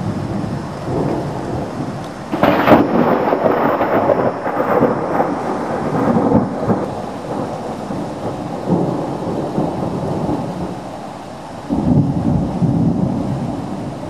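Thunder over steady rain: a sudden loud clap about two seconds in that rolls on into a long rumble, and a second lower peal of rumbling near the end.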